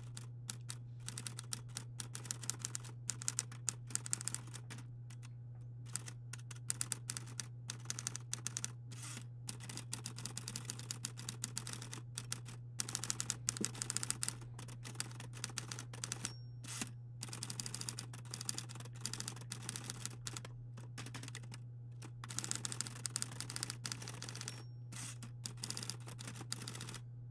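Keystrokes of typing, rapid irregular clicks in runs broken by short pauses, over a steady low hum.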